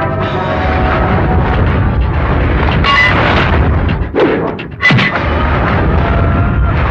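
Film fight-scene soundtrack: a loud, dense low rumble of sound effects over background music, with sharp hits about three seconds and five seconds in.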